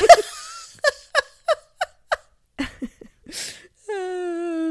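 A woman laughing: a burst at the start, then a run of short ha's about three a second, a breath in, and a long held vowel near the end.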